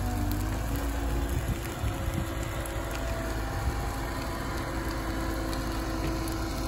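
Liebherr wheeled excavator's diesel engine running steadily under hydraulic work as its grapple swings and drops brushwood onto a bonfire, with faint crackling from the burning brush.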